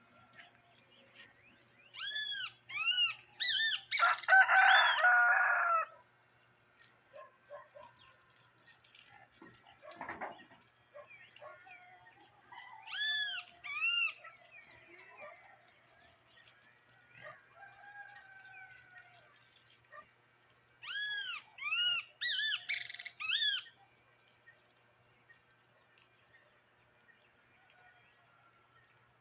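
Farmyard birds at dawn: a rooster crows once about four seconds in. A bird repeats short, clear rising-and-falling whistled notes in three bouts, over a steady high hiss.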